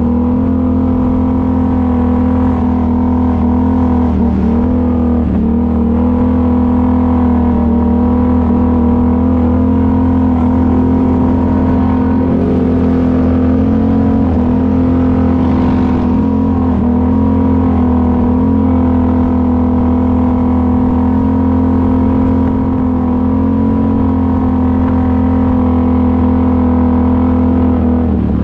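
ATV engine running steadily at a nearly constant speed, its pitch dipping slightly and recovering a few times.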